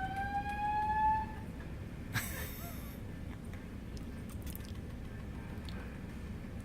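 A fire alarm's rising siren tone climbs in pitch and cuts off about a second in. A brief hiss follows about two seconds in, then only a steady low rumble.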